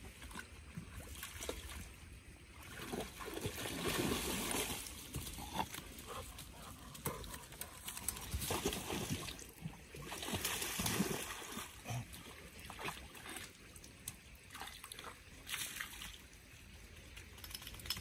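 A dog wading through a shallow stream, splashing and sloshing in irregular bursts, loudest in the middle stretch, before climbing out onto the bank.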